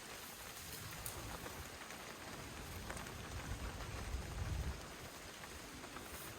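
Steady rain falling, with scattered drop ticks. A low rumble swells a little past the middle and dies away about a second later.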